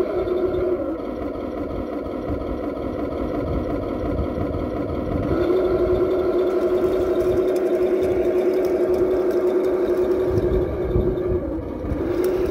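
Heng Long RC King Tiger tank's simulated engine sound running steadily. Its pitched hum drops away about a second in and comes back about five seconds in.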